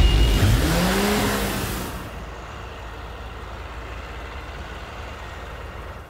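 Cartoon scene-transition sound effect: a loud whoosh with a rising engine-like rev for about two seconds, then a quieter steady background hiss.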